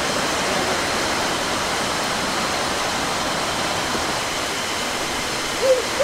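Steady rushing of a waterfall close by, an even wash of water noise. Near the end a person briefly makes a short vocal sound.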